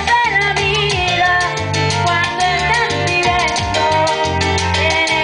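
A song performed live: a male singer sings into a handheld microphone over accompaniment with a bass line and a steady beat.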